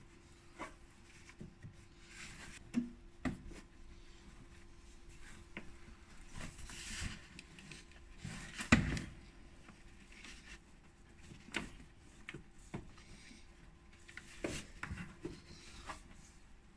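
Scattered rustling, rubbing and light clicks of hands working a rubber seal and plastic cowl trim while fitting a clip, with one sharper knock about nine seconds in. A faint steady hum sits underneath.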